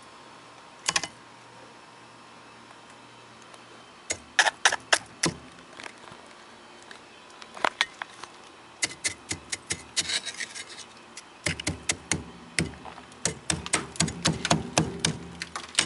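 A pick hammer striking and chipping thick built-up freezer ice: sharp, irregular knocks in small clusters that become rapid and almost continuous in the last few seconds, with ice crunching and chips falling.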